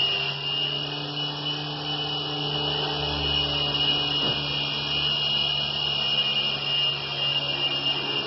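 Micro RC helicopter (Lightning 4-channel) in flight: a steady high-pitched whine from its small electric motors over a low, even hum from the spinning rotor blades.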